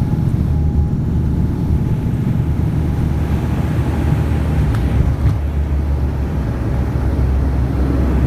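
Cabin noise of a turboprop airliner rolling along the runway: a loud, steady drone from the engines and propellers with the rumble of the wheels, and a faint steady whine over it.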